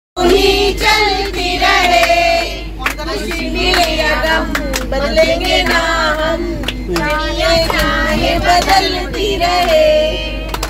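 A group of voices, children among them, singing together, with scattered hand claps.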